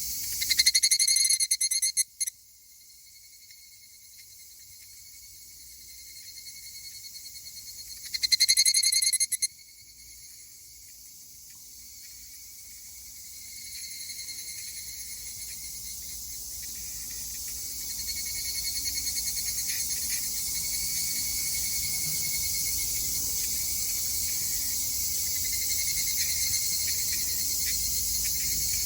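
Two male higurashi (evening cicadas, Tanna japonensis) calling. There are two loud, close pulsed bursts, about half a second in and again around eight seconds. After them a high, steady trill builds louder through the rest.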